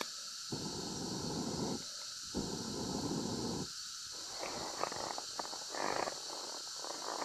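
Two long puffs of breath blown into a smoky campfire of damp wood, each lasting about a second with a short pause between. From about four seconds in, the fire crackles and snaps with sharp irregular pops.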